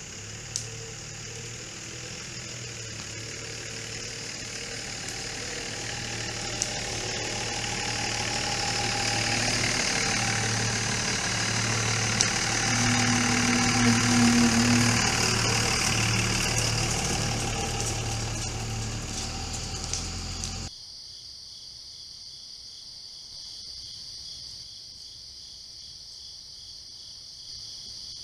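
Pickup truck engine running as the truck rolls slowly past close by, growing louder to a peak about two-thirds of the way through and then fading, over a steady chorus of insects. About twenty seconds in the sound cuts off abruptly, leaving only a steady chorus of crickets and insects.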